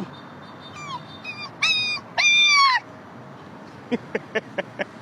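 A person's voice imitating a puppy: four high whining yelps that drop in pitch at the end, the last one the longest, then a quick run of five short yips near the end.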